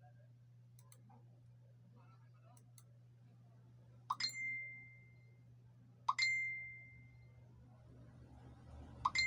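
Three short electronic dings about two seconds apart, each a quick rising chirp that settles into a ringing tone and fades over about a second, with a few faint clicks before them and a low steady hum underneath.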